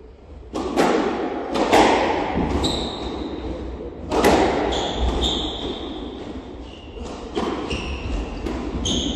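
A squash rally: the ball struck by rackets and smacking off the walls every second or few, each hit echoing around the court, with short high squeaks of shoes on the wooden floor between the shots.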